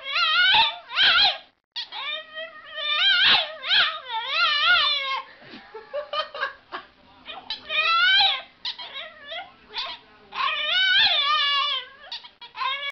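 French bulldog "talking": a run of high, warbling howl-like yowls whose pitch wavers up and down. They come in several phrases of a second or more, with short pauses between.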